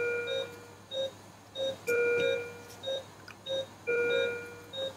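Bedside patient monitor beeping in time with the heartbeat, about one and a half short beeps a second. A longer, higher two-tone alarm beep sounds about every two seconds over it.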